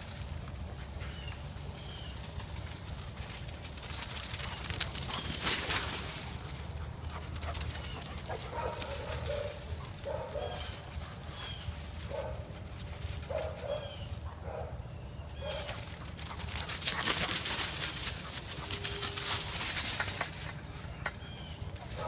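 Puppies giving a run of short barks and yips in the middle as they play, with bursts of rustling and scuffling in dry fallen leaves. Faint bird chirps.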